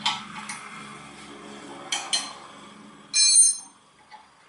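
Metal-on-metal clinks and knocks from wrenching at a front brake caliper's mounting bolts. About three seconds in comes one short, bright, ringing metallic clink, the loudest sound.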